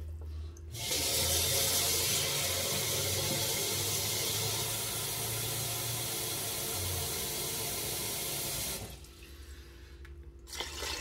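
Kitchen tap running steadily into a plastic bowl, filling it with water, for about eight seconds before it is turned off.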